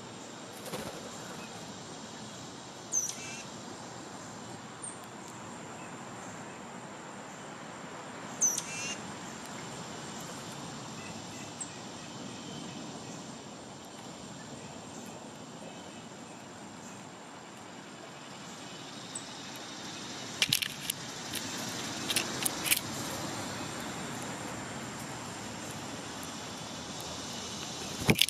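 Outdoor ambience with a steady, high insect drone, broken by a few short downslurred bird calls about 3 and 8 seconds in. Later comes a run of sharp clicks, and a louder click near the end.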